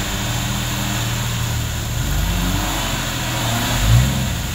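Off-road 4x4's engine running under load in deep mud, revving up about four seconds in, with a smaller rise in revs midway.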